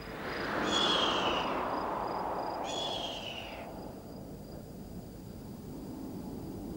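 Cartoon storm-wind sound effect: a gust swells and dies away over a few seconds, with two short falling whistles about two seconds apart.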